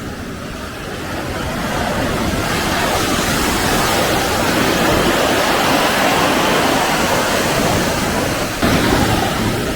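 Pacific Ocean surf: breaking waves and the rush of water up the beach, swelling over the first couple of seconds and staying loud.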